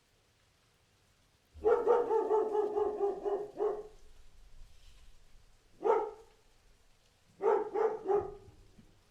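Large dog barking: a quick run of barks starting about a second and a half in, then a single bark, then a short burst of three or four barks near the end.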